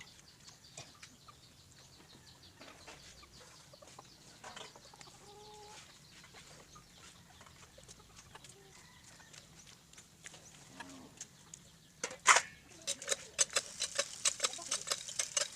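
Chickens clucking faintly in the background. About twelve seconds in there is one loud knock, followed by a quick run of crackling ticks through to the end.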